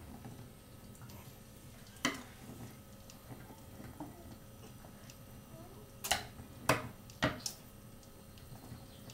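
Wooden spoon knocking against a frying pan while pasta in sauce is stirred: one sharp knock about two seconds in, then three or four quick knocks in a row near the end.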